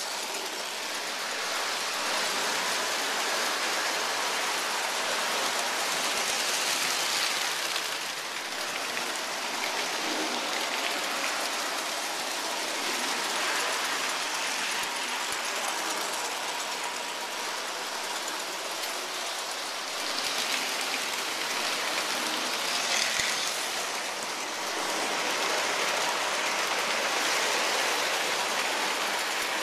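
Lionel model trains running on three-rail tubular track: a steady clatter of wheels and motors that grows louder for a few seconds at a time as trains pass close by.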